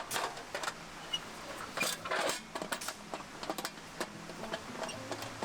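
An irregular run of clicks and knocks: small hard objects clattering together.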